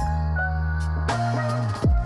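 Electronic background music with a deep, held bass and drum hits; a bass note slides downward near the end.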